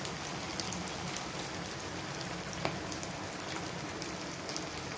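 Cornflour-coated potato tikkis shallow-frying in hot oil: a steady sizzle with scattered small crackles and pops, one a little louder about two and a half seconds in.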